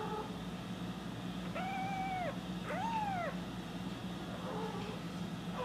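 A kitten meowing: two high-pitched meows in quick succession about two seconds in, each about half a second long, then a fainter call near the end, over a steady low hum.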